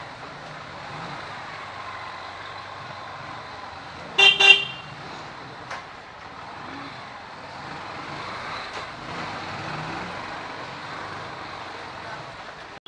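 Steady street traffic noise with one short vehicle horn honk about four seconds in.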